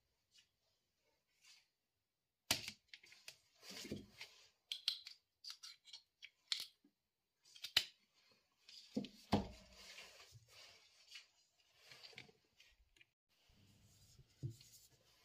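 Handling noise of a plastic power adapter and its cord being picked up and moved about on a table: irregular clicks, knocks and rustling that start about two and a half seconds in and go on in a dense run.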